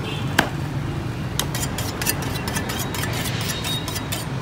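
Cleaver chopping through a large grouper on a chopping block: one sharp chop about half a second in, a lighter knock about a second later, then a quick run of light clicks and scraping as the blade works through skin and bone. A steady low rumble of street traffic lies underneath.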